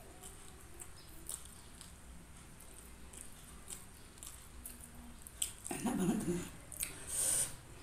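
Close-miked eating: faint clicks and crackles as fried chicken is picked apart by hand and chewed. About six seconds in there are louder wet mouth sounds, then a short hiss.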